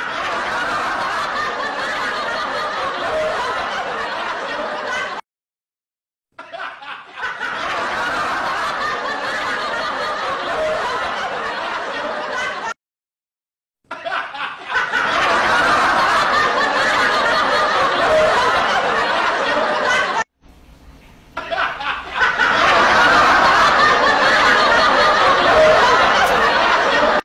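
Non-speech human vocal sounds, a few seconds long, repeated four times with sudden silent gaps between the repeats.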